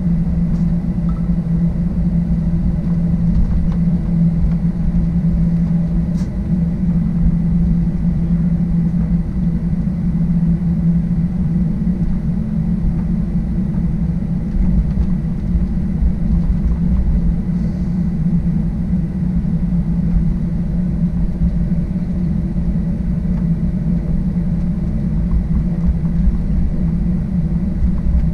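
Cabin noise of a Boeing 737-800 taxiing: the steady low rumble of its CFM56-7B engines at taxi power, with a constant low hum and a faint high whine over it.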